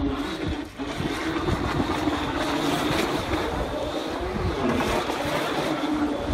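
Radio-controlled boat's motor running steadily, a constant hum that dips in pitch briefly a little past the middle, with wind rumbling on the microphone.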